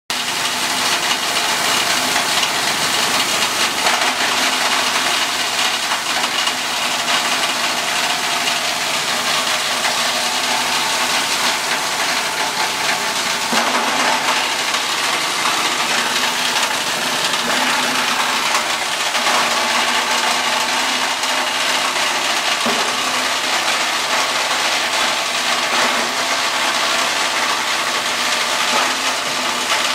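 Plastic shredder running steadily with plastic waste being fed into its hopper, the chopping blades giving a constant loud clattering over the drive's steady running, with scattered brief knocks.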